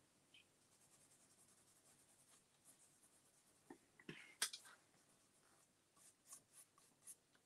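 Faint rubbing as stain is worked by gloved hand onto a cabinet's drawer front, with a short cluster of small knocks about four seconds in and a few light taps near the end.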